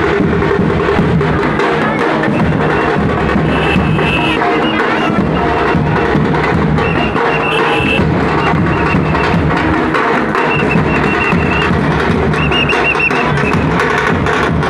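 Loud, continuous drum-heavy dance music, with a high wavering tone coming in and out above the drumming several times.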